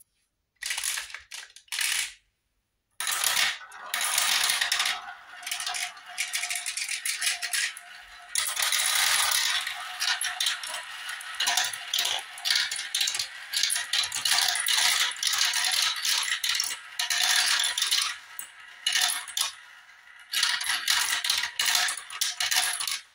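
Glass marbles rolling and clattering through a plastic marble run. A few short rattles open it, then from about three seconds a dense, continuous rattle as several marbles swirl around a plastic funnel together, easing briefly near the end before picking up again.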